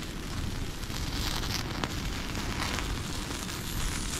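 Driftwood campfire crackling steadily with a scatter of small pops as whole pigeons are singed on it to burn off their feathers.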